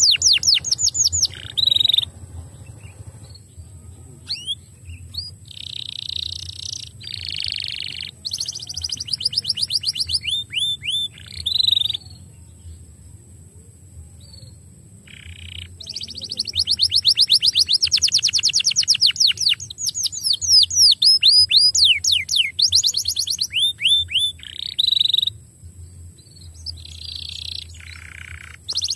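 Canary singing: rolling trills of fast, falling notes broken by harsh buzzy notes, with a quiet spell about midway before the song picks up again.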